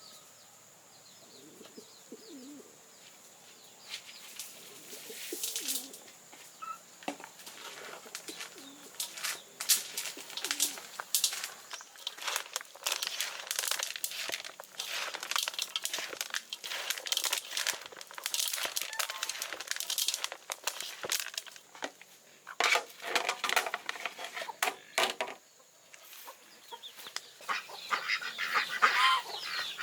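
Domestic chickens clucking. Through the middle comes a dense run of short rustling and scraping noises, and more calls come near the end.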